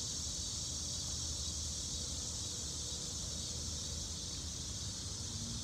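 Steady, continuous high-pitched insect chorus over a low outdoor rumble.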